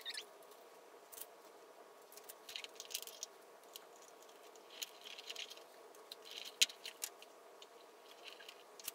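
Faint rustling of paper cards and small clicks as hole-punched calendar cards are handled and put on binder rings, with one sharper click about two-thirds of the way through, over a steady faint room hum.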